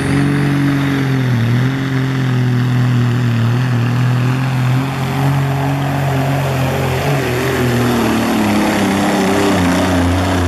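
Diesel semi-truck engine running hard at full throttle while pulling a weight-transfer sled, a loud, steady drone whose pitch slowly sags as the sled's load builds.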